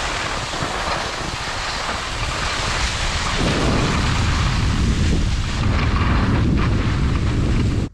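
Heavy wind rumble buffeting a camera's microphone while skiing downhill at speed, mixed with the hiss of skis running over packed snow.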